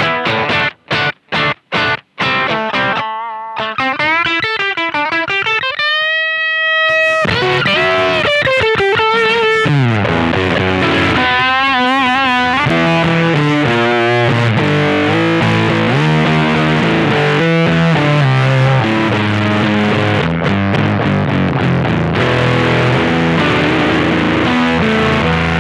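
Electric guitar played through a BC108 silicon-transistor Fuzz Face clone pedal running at 18 volts. A few short choppy stabs give way to a held, bent note with vibrato, then a slide down into continuous fuzzy riffing. At this voltage the earlier gated sound is gone, though the player still hears it as a badly biased Fuzz Face, probably still set too low.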